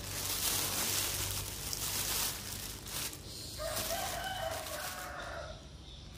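A rooster crowing once, a call of about two seconds beginning just past the middle, after a few seconds of a steady hissing noise.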